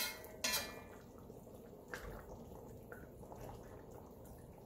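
A large metal spoon knocks twice against the side of a pot of curry, then stirs through the chicken and potatoes while the thin curry simmers with soft bubbling and dripping.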